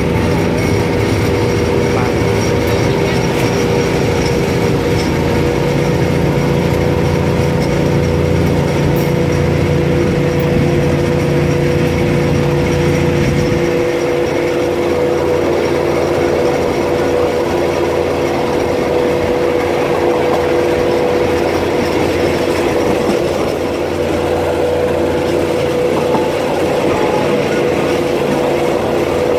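Diesel railcar running along the line, heard from inside the carriage: a steady engine drone and wheel-on-rail rumble with a constant whine. About halfway through, the deep engine hum drops away while the rest keeps going.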